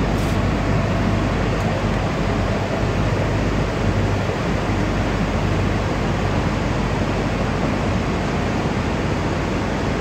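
Steady industrial machinery noise: an even rushing with a low hum underneath, unchanging throughout.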